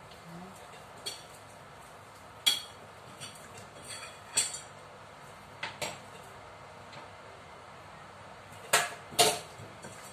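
Chicken wings being mixed by hand in a bowl: scattered sharp clicks and knocks against the bowl, with the loudest two close together near the end.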